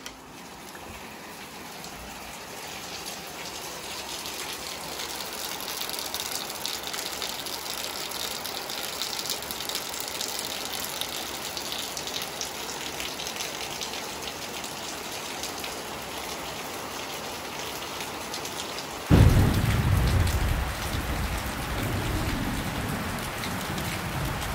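Steady rain falling. About two-thirds of the way through, a sudden loud thunderclap breaks in and rumbles away over several seconds.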